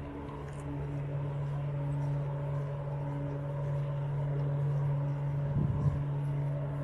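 Steady low mechanical hum with street traffic noise under it, and a short louder rumble about five and a half seconds in.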